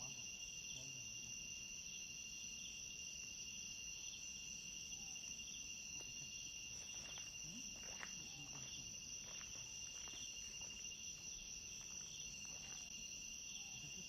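Night insect chorus of crickets trilling steadily in two high-pitched bands, one of them pulsing rapidly, with a few faint clicks about halfway through.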